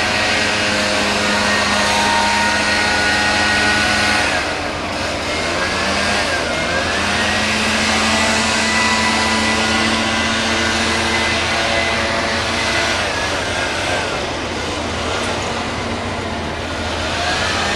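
Amtrak Northeast Regional Amfleet passenger coaches rolling past on steel rails, a steady loud rumble and rush of wheels, with a thin high whine that dips and rises a few times.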